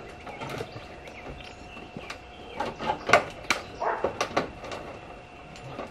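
A cluster of sharp knocks and clanks, about half a dozen strikes over a couple of seconds, starting a little past the middle.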